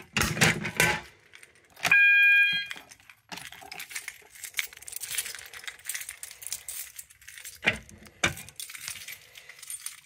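Rattling and clicking of a clear plastic pull-station cover and a Notifier BNG-1TS pull station being handled and opened with a key, metal and plastic knocking and keys jangling. About two seconds in, a single short 800 Hz horn tone of under a second sounds, the System Sensor MASS horn.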